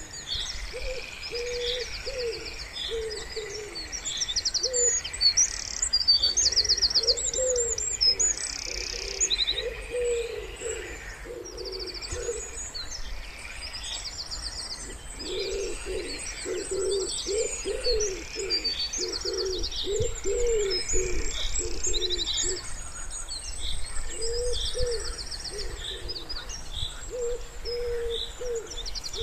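Wood pigeons cooing in soft, low repeated phrases, most busily in the middle of the clip, while small songbirds chirp and sing rapid high trills over them.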